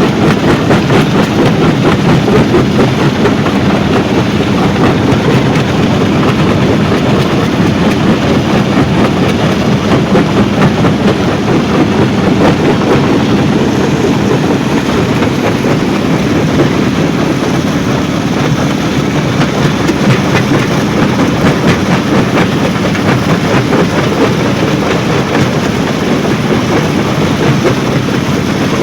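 Stone crushing plant running: the vibrating feeder and crusher make a loud, steady rumble with a dense, fast clatter of stone.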